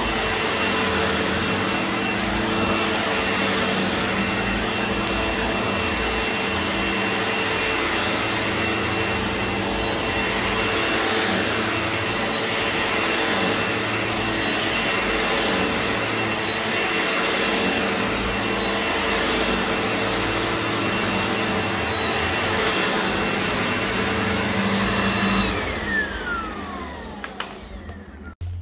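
Upright vacuum cleaner running steadily over carpet, with a high-pitched whine over its motor hum. About 25 seconds in the motor winds down, its whine falling in pitch as the noise fades.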